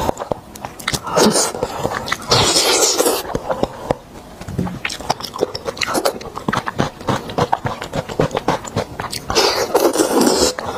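Close-miked wet chewing and sucking on braised beef bone marrow: a stream of sharp, sticky mouth clicks, with loud slurps about a second in, again around two to three seconds, and near the end.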